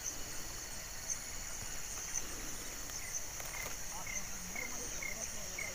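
Insects shrilling in a steady high-pitched chorus with a regular pulse. In the second half, a short chirp repeats about twice a second.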